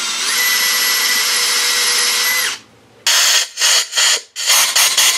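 Cordless drill boring into the aluminium K24 engine block: a steady whine that rises a little in pitch just after it starts, then stops about two and a half seconds in. After a brief pause comes a series of about six short trigger bursts. This is the drilling of the oil-pump hole that will be tapped for an 1/8 inch NPT plug.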